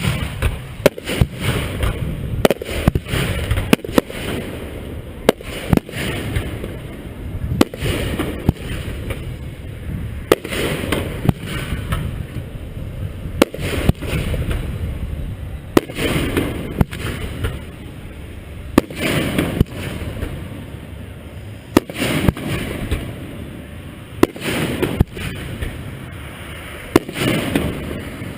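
Aerial fireworks exploding: irregular sharp bangs and crackling bursts, some in quick clusters, each followed by a rumbling echo.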